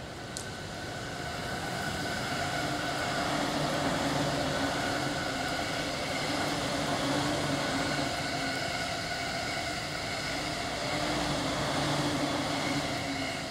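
Green-and-orange-striped JR Tokaido Line electric commuter train running past: a steady rumble of wheels on rails with a steady hum over it, growing louder over the first couple of seconds as it draws close and easing off near the end.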